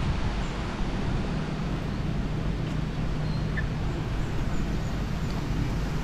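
Steady low rumble of outdoor background noise with a faint, even hum underneath.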